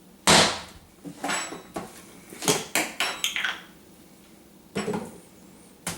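Dishes and utensils clattering and knocking in a string of sharp, separate hits, the first the loudest.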